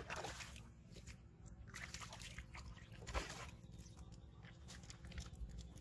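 Hooked carp splashing and thrashing at the pond surface in three short bursts, the loudest about three seconds in, as it is hauled out of the water on the line.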